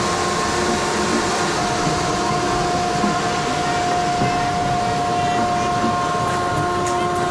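A machine running steadily: a loud rushing noise with a few steady whining tones held throughout.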